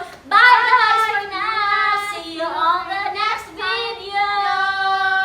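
High-pitched singing voice, gliding between notes and then holding long notes near the end.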